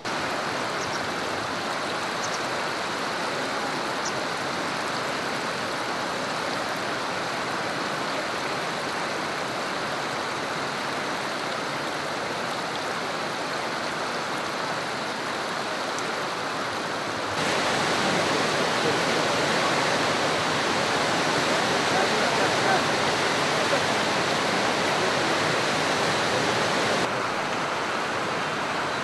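Flooding Drina river water rushing steadily past, an even rushing noise that grows abruptly louder about seventeen seconds in and drops back near the end.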